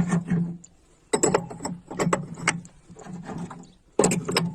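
Submersible pump starter being worked by hand, its contactor giving a series of sharp mechanical clacks and rattles about a second apart. There is no steady humming, because the contactor's contact points have just been greased.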